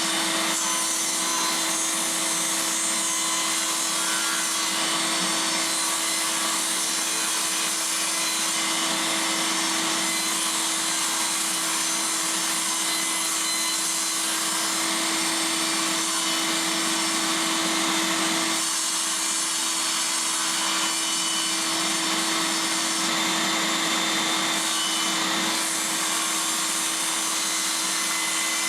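Table saw running steadily through a long stretch of cutting plywood, a continuous even drone with a steady hum underneath.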